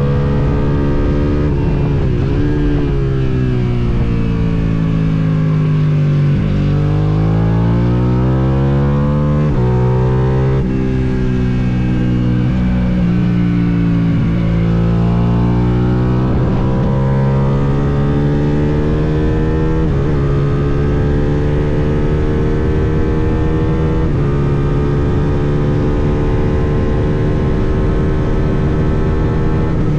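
Suzuki SV650 V-twin race motorcycle engine at racing pace, recorded onboard with wind rushing past. The revs fall through downshifts early on and rise again through quick upshifts. They drop again for a corner around the middle, then climb through the gears and hold high near the end.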